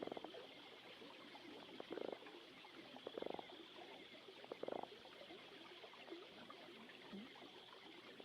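Faint recorded nature ambience: a steady high buzz like an insect chorus, with four short, rapidly pulsed croaking calls in the first five seconds.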